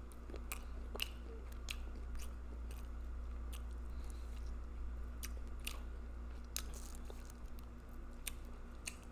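Close-miked chewing and mouth smacking of a person eating a spicy seafood boil, with irregular clicks a few times a second over a steady low hum.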